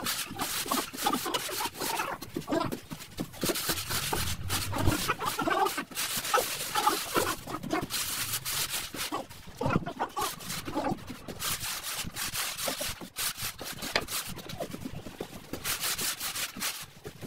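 Wooden straightedge scraping and dragging over semi-dry sand-cement floor screed as it is levelled: a gritty rasping that comes and goes in strokes. Short wavering pitched calls are mixed in during the first two-thirds.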